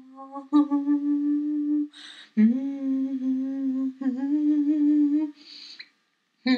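A voice humming long, held notes at nearly one pitch, sliding up into some of them, with audible breaths between phrases.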